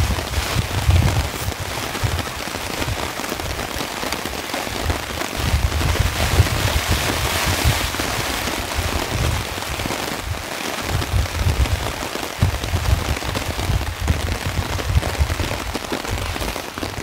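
Heavy rain pouring down in a steady, dense hiss, with an uneven low rumble underneath.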